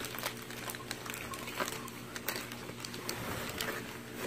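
Plastic air-pillow packing and bubble wrap crinkling and rustling in short, scattered crackles as hands shift them, over a steady low hum.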